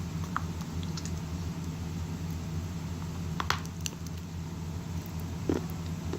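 Wet grey clay being chewed in the mouth: a few soft, sticky squishes and clicks, the loudest about halfway through and another near the end, over a steady low hum.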